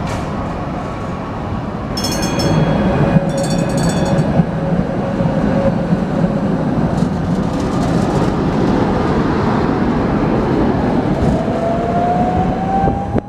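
Tatra T2 tram running on street track with a steady rumble of wheels and motor. Two short high-pitched squeals or rings come a few seconds in. A whine rises steadily in pitch near the end as the tram accelerates away.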